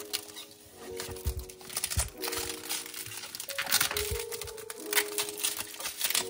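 Packaging crinkling and rustling as it is handled and opened, in many quick crackles that are busiest in the middle, over soft background music.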